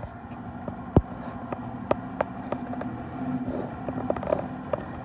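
A motor vehicle engine running steadily, with a series of sharp clicks and knocks over it, the loudest about a second in.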